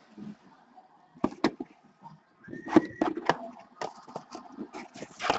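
Card box packaging being handled and opened: a string of sharp clicks and crackles, with a brief squeak about two and a half seconds in and denser crackling near the end.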